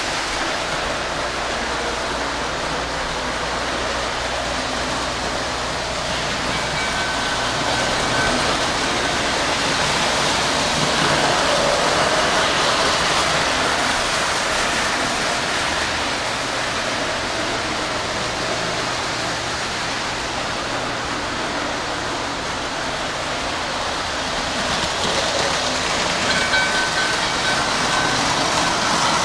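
O gauge model trains running on three-rail track: a steady rumble and hiss of wheels on rail, growing louder as a train passes close about a third of the way in and again near the end.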